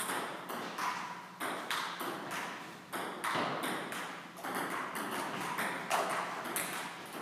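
Table tennis rally: the celluloid ball clicking off bats and table, about two hits a second, each hit echoing briefly in a large hall.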